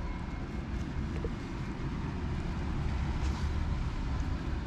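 Steady low outdoor rumble, with a faint brief rustle about three seconds in.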